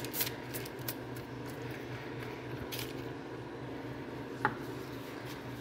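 Faint clicks and rustles from handling a baking tray lined with baking paper, over a steady low hum, with one short high squeak about four and a half seconds in.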